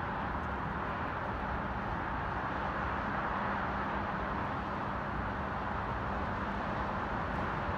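Steady far-off hum of highway traffic, even and unchanging, with a faint low steady tone that fades out about two seconds in.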